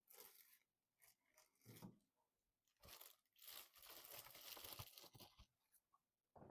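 Packaging being handled during a PC build: short, quiet bursts of rustling and tearing with a few light clicks between pauses.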